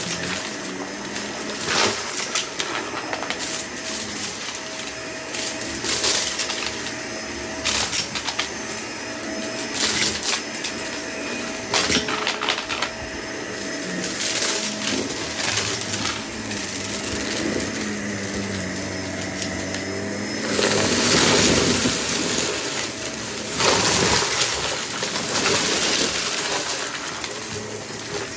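Shark vacuum running with a steady motor whine as it sucks up confetti and sequins from a shag rug and carpet, the pieces rattling and clicking up through the head into the clear bin. The suction noise swells louder for a couple of seconds about two-thirds of the way through, and again shortly after.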